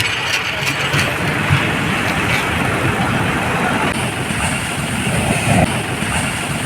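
A fishing boat's outboard engine running steadily under a constant rush of surf and wind noise.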